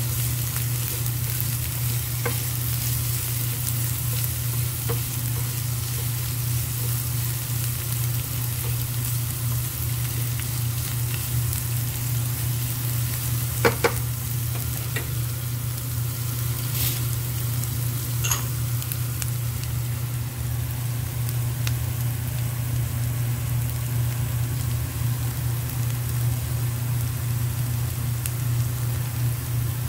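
Sliced garlic and ginger sizzling in olive oil in a non-stick frying pan, stirred with a spatula, with a sharp knock about halfway through. A steady low hum runs underneath.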